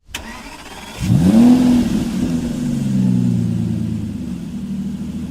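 Suzuki Alto car engine starting about a second in, flaring up in revs and then settling to a steady idle.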